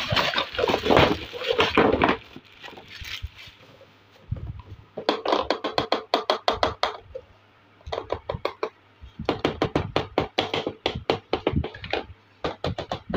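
Clear plastic bag crinkling for the first couple of seconds as it is opened. Then, from about five seconds in, many quick clicks and clacks of small hollow plastic toy cups and pots knocking together as they are handled and stacked.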